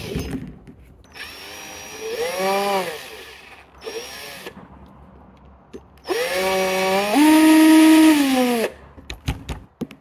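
Handheld power drill run in short bursts, its motor speeding up and slowing down each time. A short run ends just after the start, a longer one follows, then a brief one, and a final, loudest run that steps up to a higher speed. A few sharp clicks come near the end.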